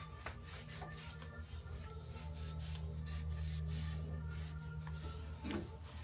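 Rapid, repeated hand rubbing strokes on a surface, over a steady low hum.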